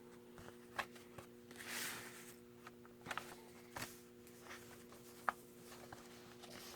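Faint paper handling: light rustles and a few small clicks and taps as the pages and tags of a handmade paper junk journal are moved, over a faint steady hum.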